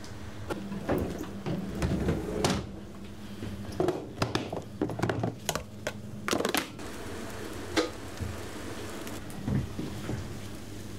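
Irregular knocks and clatter of kitchen work, mostly in the first two-thirds, over a steady low hum.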